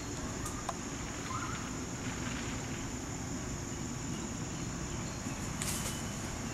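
Outdoor ambience with a steady, high-pitched insect drone, a few faint clicks and chirps, and a short burst of rustling near the end.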